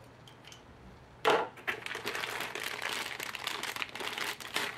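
Clear plastic bag crinkling as it is picked up and handled: a sharp rustle about a second in, then continuous crackling.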